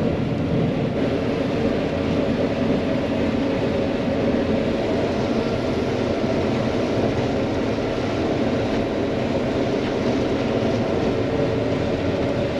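John Deere 9500 combine's diesel engine running steadily under way, a constant drone.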